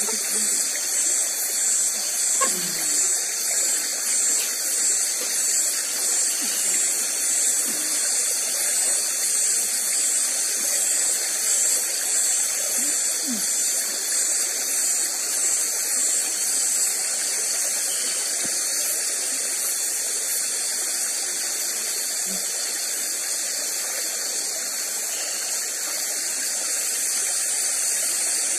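Night chorus of tropical insects: a high, steady buzzing hiss with a regular pulse a little over once a second that stops about two-thirds of the way through, leaving the buzz steady. A few short, low falling calls are scattered through it.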